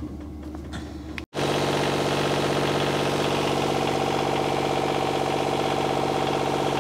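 Volvo Penta MD2040 marine diesel engine running steadily, with its cover open, after a fresh service. It cuts in abruptly about a second in, after a low hum.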